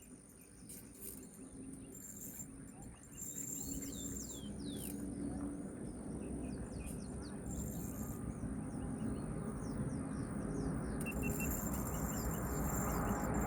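Birds chirping over a steady high-pitched insect buzz, with a low rumble that grows steadily louder from a few seconds in.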